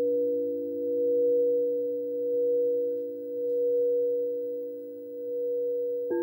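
Frosted quartz crystal singing bowls ringing in steady overlapping tones, swelling and fading about once a second as a mallet is worked around the rim of the smallest bowl. About six seconds in, a new strike brings in a fresh set of brighter tones.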